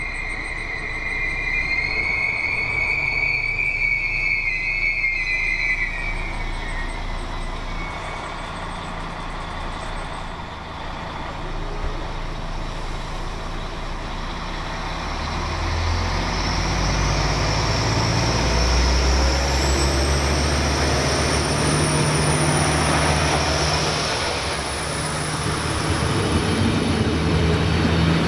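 Alstom Coradia LINT 54 diesel multiple unit: a high brake or wheel squeal over the first few seconds, then its diesel engines run up as it pulls away. It comes close and passes with a low engine drone and a high whine that rises and then holds.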